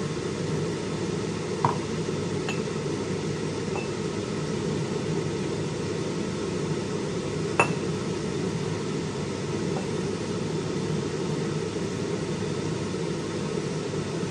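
Light clinks of a glass jar being handled as cheese is put in, once about two seconds in and a sharper one about seven and a half seconds in, over a steady low hum.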